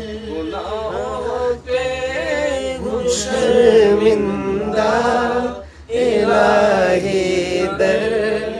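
A man singing an Urdu devotional nazm (a supplication for forgiveness) with no accompaniment, holding long, wavering, ornamented notes, with a short break for breath about six seconds in.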